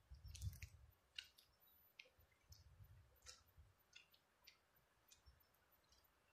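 Near silence: faint outdoor ambience with scattered short, high clicks and chirps at irregular intervals and a low rumble in the first second.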